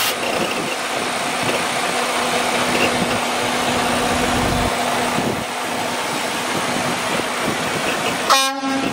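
Steady noise of a Freightliner Cascadia semi-truck idling, with wind on the microphone and a low steady hum for the first half. A short toot about eight seconds in.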